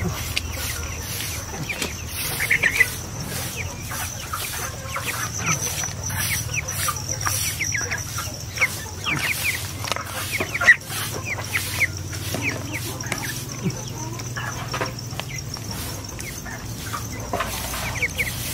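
Chickens clucking and giving many short, quick chirps as they feed from a dish of pellets, with a couple of sharp taps along the way. A steady high whine runs under the first half.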